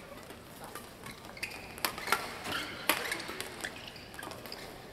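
Badminton rally: the sharp cracks of rackets striking the shuttlecock, the two loudest about a second apart in the middle, with lighter shoe taps and squeaks from the players' footwork on the court.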